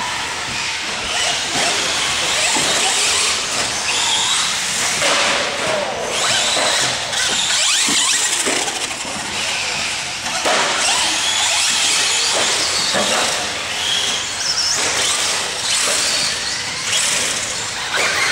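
Traxxas Slash short-course RC truck driving on a dirt track, its motor whining high and rising and falling with the throttle.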